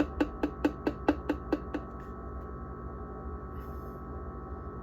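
Rapid, evenly spaced knocks, about four or five a second, of a plastic mustard bottle being banged to shift its last mustard into another container; they fade out about two seconds in.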